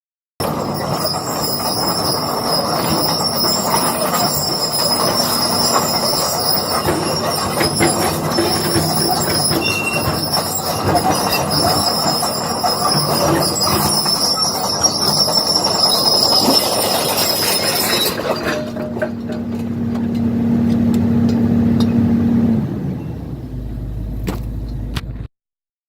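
Excavator running while its steel tracks squeal and clank over concrete rubble, with many knocks. After about 18 seconds the squealing stops and a steady hum holds for about four seconds, then a low rumble, and the sound cuts off suddenly.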